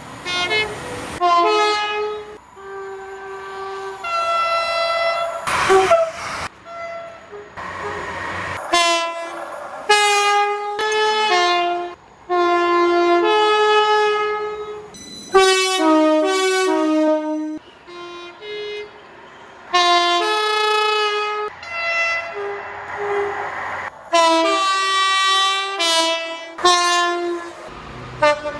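British train horns sounding a long run of two-tone blasts, high and low notes one after the other, in short clips cut abruptly one after another. Between some blasts there is the rush of a train going by.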